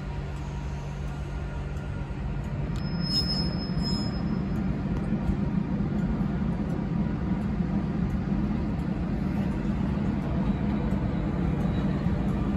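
Class 86 electric locomotive 86101 moving slowly toward the listener, a steady low hum that grows louder as it nears. A brief high squeal about three seconds in.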